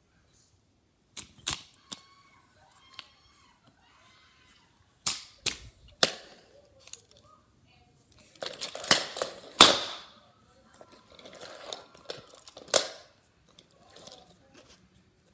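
Handling of hard plastic toys: scattered sharp clacks and knocks in short clusters, the busiest and loudest stretch coming just before the ten-second mark.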